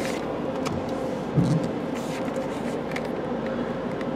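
In-bay car wash dryer blowers running steadily for the vehicle ahead, a continuous blowing drone with a held hum, heard from inside a waiting car. A few light ticks and a brief low swell about a second and a half in.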